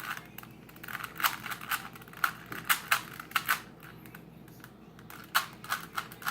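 Rubik's Cube being turned quickly by hand: a rapid, irregular run of plastic clicks as its layers snap round, in flurries with a quieter pause of about a second after the middle.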